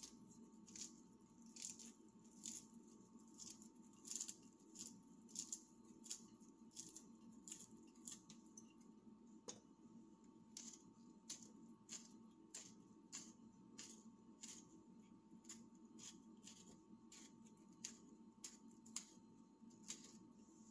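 Faint, crisp snicks of a small kitchen knife cutting through bell pepper and tomato held in the hand, a little more than one cut a second.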